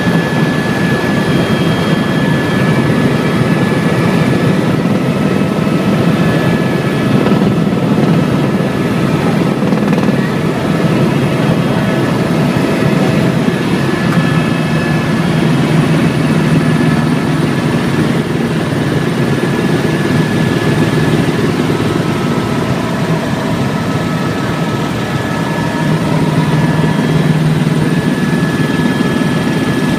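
Helicopter in flight heard from inside the cabin: a loud, steady rumble of rotor and engine, with thin steady whining tones above it.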